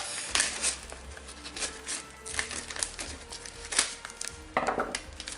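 Scissors cutting into a wrapped parcel's paper and wrapping: a run of short snips and paper crackles over background music.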